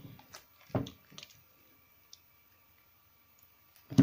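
Soft, soaked recycled soap balls squished in wet hands in a basin of soapy water: a wet squelch about a second in with a few small splashes around it, then a quiet spell, and another loud squelch at the very end.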